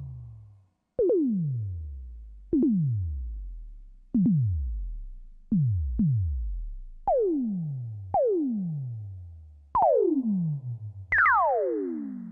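Synthesized laser-weapon zaps fired one after another, about nine in all, each a sharp attack with a pitch that falls steeply away over about a second. Two come close together in the middle, and the last one starts higher in pitch.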